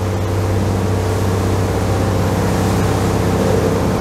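Motor yacht's engines running steadily underway: an even low drone with a wash of broad noise over it.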